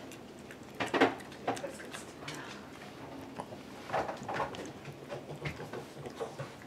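Cavalier King Charles spaniel crunching a dry dog biscuit and picking its crumbs up off a rubber kitchen mat, in short irregular crunches. The loudest come about a second in and around four seconds in.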